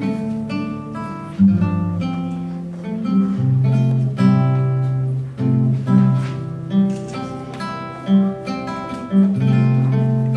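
Acoustic guitar playing at a steady, even pace: a run of plucked and strummed notes over low notes held underneath.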